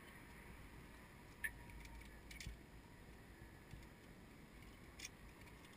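Near silence with a low wind rumble, broken by three short, sharp metallic clicks about one and a half, two and a half and five seconds in: zip-line harness hardware, carabiners and trolley, being handled on the cable.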